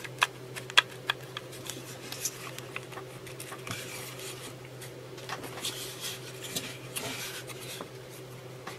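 Angle grinder motor parts being handled and fitted together by hand: the black plastic rear end piece worked onto the stator over the armature's commutator end. Two sharp plastic clicks come in the first second, then scattered scraping and rubbing of plastic on metal, over a faint steady hum.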